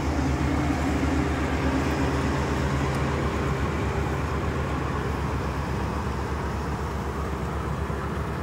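Rice combine harvester running steadily, a low diesel engine drone with the rushing noise of its threshing and grain-handling works, easing slightly as it moves away.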